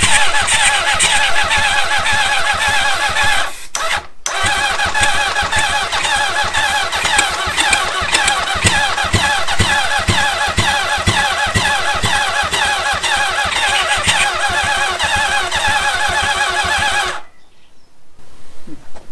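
Honda CB750 four-cylinder engine cranking steadily on its electric starter, with irregular low thumps of some cylinders firing but the engine not catching. The cranking pauses briefly about four seconds in, resumes, and cuts off about two seconds before the end. Fewer cylinders fire than hoped, which the owner suspects is down to unchecked ignition timing on cylinders 2 and 3 of the new Dyna ignition.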